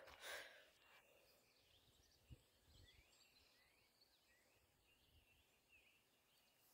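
Near-silent outdoor quiet with faint small birds chirping in short rising and falling notes. A brief swish at the start and a soft thump about two seconds in.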